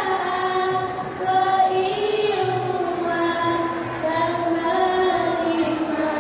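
A group of girls singing together in unison, holding long notes that glide gently up and down.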